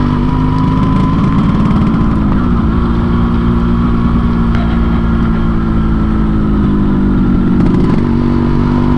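Yamaha RX-King 135 cc two-stroke single-cylinder motorcycle running under way, with the Medan-style 'ngorok' (snoring) exhaust setup. The engine note is steady, briefly rising then stepping down about two and a half seconds in and again near the end.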